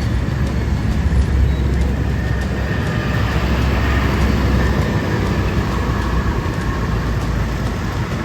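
Car on the move: a steady rumble of road and engine noise.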